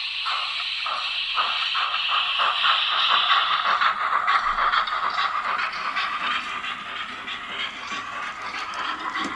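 Sound decoder in a Roco TT-scale model of the BR 02 steam locomotive playing steam exhaust chuffs over a steady hiss, through the model's small onboard speaker. The chuffs quicken as the engine picks up speed, running together into a near-continuous rush after about four seconds.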